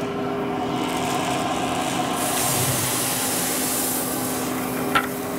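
Valenta 7 fluid-bed coffee roaster's loft-air blower running with a steady hum as green coffee beans are poured from a bucket into its hopper; the pour makes a rushing hiss that swells about two seconds in and fades before one sharp click near the end.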